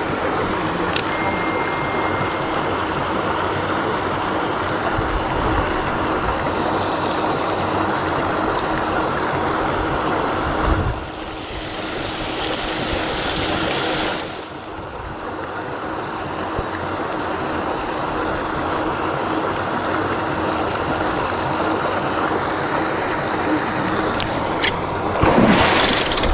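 Steady churning rush of water from paddlewheel aerators on a fish pond, with a low motor hum under it. Near the end a hooked fish splashes and thrashes at the surface.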